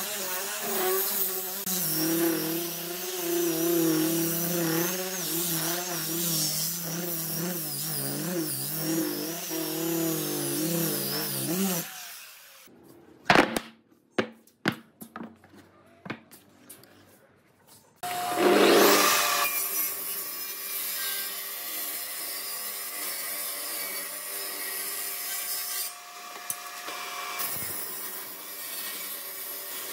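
Electric orbital sander running over pine boards, its motor pitch wavering as it is worked, stopping about twelve seconds in. A few sharp knocks of wooden pieces being handled follow. About eighteen seconds in, a table saw spins up and runs steadily while a hardwood strip is ripped.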